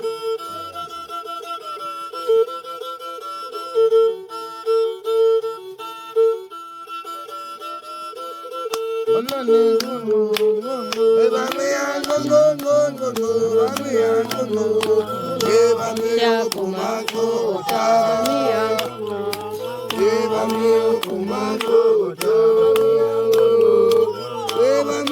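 Background music: a steady held drone with sharp percussive taps, joined about nine seconds in by a wavering melody and, a few seconds later, a low bass line.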